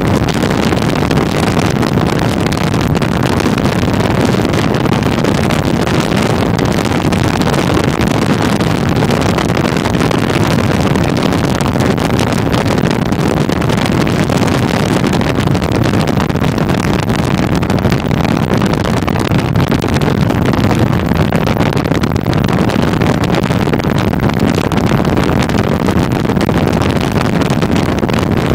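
Steady rushing wind and road noise of a moving car, picked up by a phone from inside the car.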